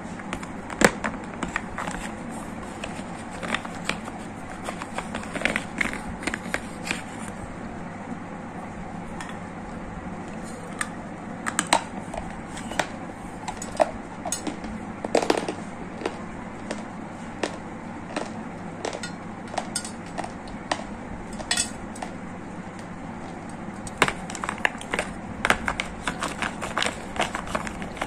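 A white ceramic spoon and dry gray clay lumps clicking and knocking against a plastic plate as they are handled: scattered sharp taps, some in quick clusters, growing busier near the end, over a steady low background noise.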